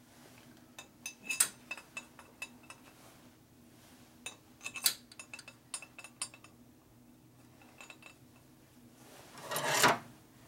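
Small metal cylinder-head parts clinking and tapping against each other as they are handled, in two quick clusters of light ringing clicks. Near the end comes a louder, brief scraping swish.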